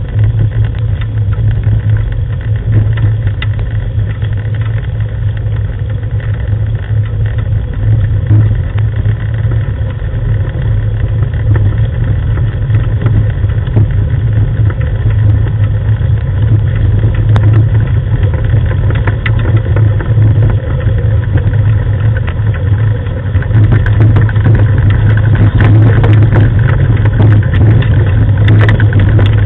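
Steady low engine hum from the vehicle towed by a dog team, with rough rumble from its wheels on a gravel track; it gets louder about 23 seconds in.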